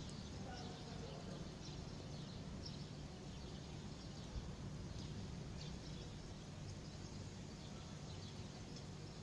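Faint outdoor ambience: a low steady hum with a few short, distant bird chirps scattered through it.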